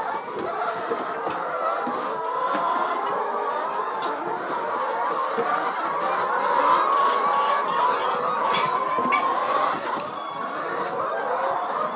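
A large flock of brown hens clucking and calling continuously, many birds overlapping.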